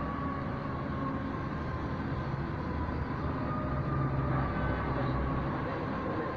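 City street traffic: a steady low engine rumble that swells briefly past the middle, with a faint thin whine that slides slowly down in pitch and starts over once.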